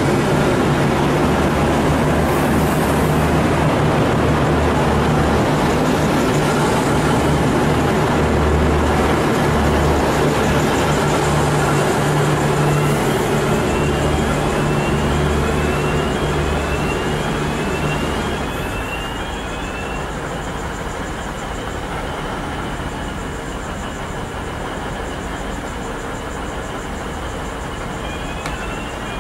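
V/Line VLocity diesel railcar set running into the platform and drawing to a stop, its diesel engines loud and steady. A run of short rising squeaks comes as it slows. About two-thirds in the noise drops as the train stands with its engines idling.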